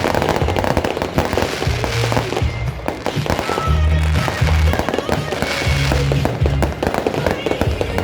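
Aerial fireworks bursting and crackling in rapid, dense volleys over loud music with a heavy repeating bass beat.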